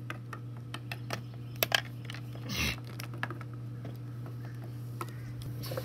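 Small plastic toy figures and pieces tapping and clicking on a wooden tabletop as they are handled, irregular light clicks with a brief rustle about halfway through, over a steady low hum.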